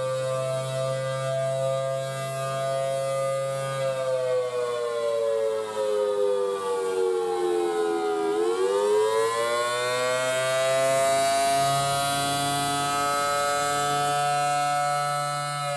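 Federal Signal Thunderbolt 1000T dual-tone rotating siren sounding the attack signal: its two-note wail holds, falls for about four seconds, swoops back up and holds high again.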